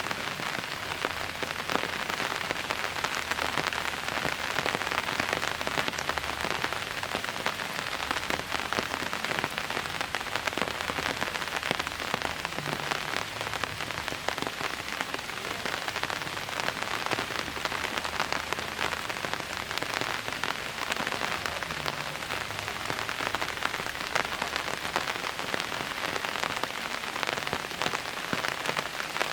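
Steady rain falling on a surface: an even, unbroken hiss of countless drops.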